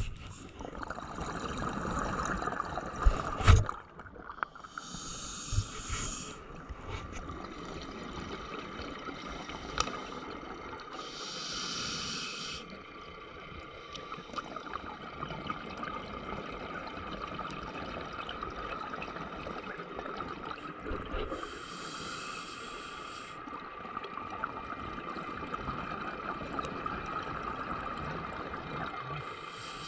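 Underwater sound from a scuba diver's camera: a steady watery hiss and hum, with a breath-like rush of hiss and bubbles from the diver's breathing gear every several seconds. A couple of sharp knocks come about three seconds in.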